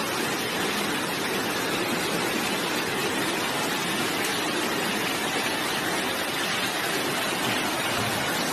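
Steady, even rush of water from the flooding, with no let-up or change.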